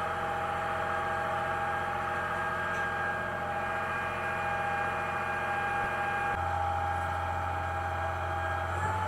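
Dive boat's engine running steadily, a constant hum with held tones that shifts slightly about six seconds in.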